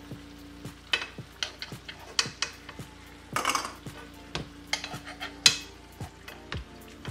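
A spoon clinking and scraping against a frying pan as pork chops are stirred in their pan sauce, in irregular knocks, with a short burst of hiss about three and a half seconds in.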